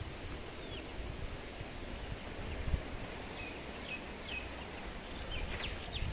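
Rural outdoor ambience: a steady low rumble with a few short, falling bird chirps scattered through.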